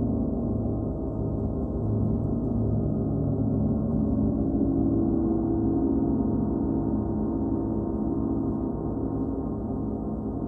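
A 38-inch Paiste gong sounding continuously: a sustained wash of many overlapping low tones with no separate strokes. It swells a little mid-way and fades slightly near the end.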